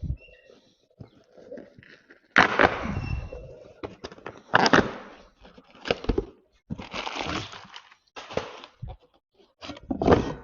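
Crackling, crinkling handling noise in a series of irregular bursts, the loudest about two and a half seconds in, nearly five seconds in and near the end, as packaging is opened to get at a new brush cutter blade.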